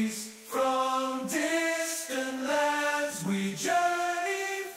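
Intro music: a choir singing slow, held notes that step up and down in pitch, with brief breaks between phrases.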